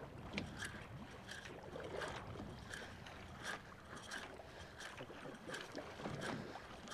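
Faint small-wave slaps of water against the boat's hull, coming irregularly about every half second over a low rumble of light wind.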